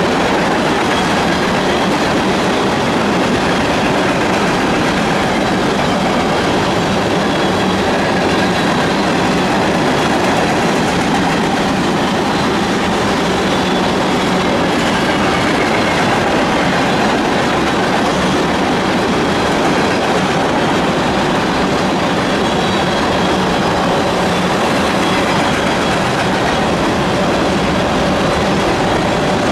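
Freight train of oil tank cars rolling past, steel wheels running on the rails in a steady, loud, unbroken rumble.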